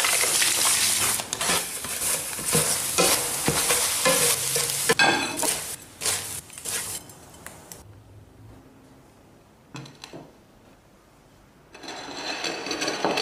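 Wet paper pulp poured into an electric skillet and stirred and scraped around with a spatula as it fries. The scraping dies away about seven seconds in, and a new rustling noise starts near the end.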